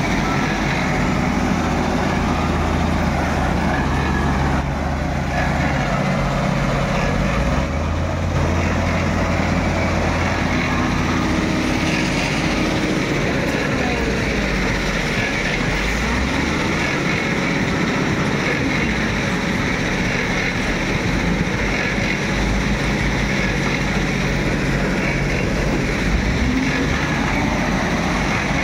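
Hyundai HL635L wheel loader's diesel engine running continuously, its note stepping up and down several times as the machine is driven and the bucket is worked to tip sand into a truck.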